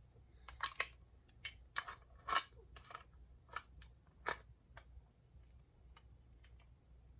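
Clicks and light knocks of a spray gun's metal and plastic parts being handled and fitted together, about a dozen in an irregular run, the loudest a little past two seconds and again past four seconds in, then only a few faint ticks.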